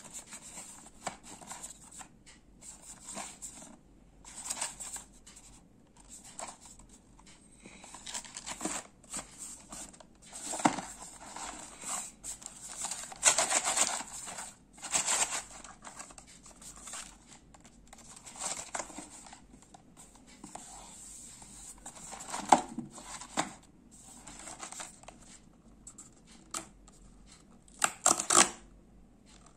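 Hands handling a paperboard cookie box, the cardboard rubbing, scraping and crinkling in irregular bursts. The loudest tearing and scraping comes near the end, as the box's end flap is pried open.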